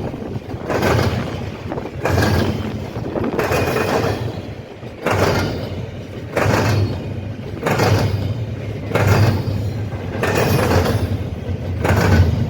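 A passing train's wheels clattering over a railroad diamond crossing: a run of loud bangs about every second or so over a steady low rumble.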